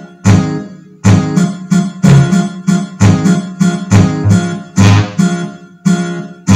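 MIDI sound module playing plucked-sounding bass notes and chords, about two to three a second, triggered from the bass buttons of a MIDI diatonic button accordion with the sustain pedal held down.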